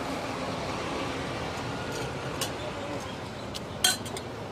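Steady outdoor street background noise, with a few sharp metallic clinks near the end: a spoon knocking against a steel bowl at a sandwich stall.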